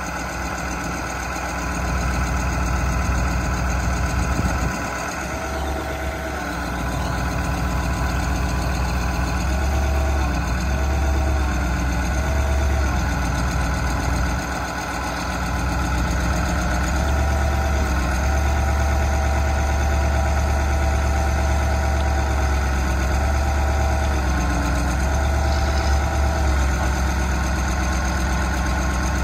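Ford 8000 boom truck's engine idling steadily, with a steady whine that comes and goes in several spells and a heavier low hum at the same times, as the truck's hydraulics work the outrigger and crane.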